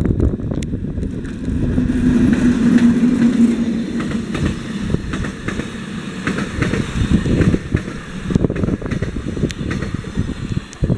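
Matterhorn Gotthard Bahn HGe 4/4 II electric locomotive hauling the Glacier Express past at close range: a hum from the locomotive is loudest about two to three seconds in as it goes by, then the panorama coaches roll past with a steady rumble and repeated wheel clicks on the rails.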